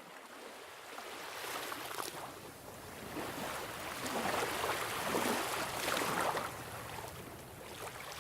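Sea waves washing onto a beach, swelling to their loudest about four to six seconds in.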